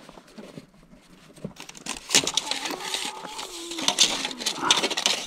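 A screwdriver ticks faintly against the knockout seal of a plastic electrical box. About two seconds in, a steel tape measure is pulled out and handled, making a dense run of clicks and rattles.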